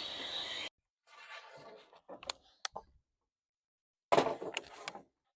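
A table saw ripping a board stops abruptly just after the start. A few sharp knocks follow, then a louder clatter of wooden boards about four seconds in.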